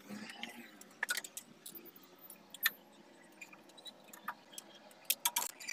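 Scattered light clicks and taps with faint rustling from a clothes-drying ceiling hanger being handled: its steel rods, fittings and rope knocking and sliding, with a quick cluster of sharper clicks near the end.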